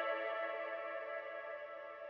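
Ambient background music: a held chord slowly fading out.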